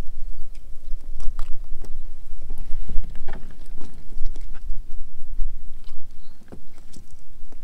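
Wind buffeting the microphone, a heavy gusting rumble, with scattered knocks and clicks from handling at irregular moments.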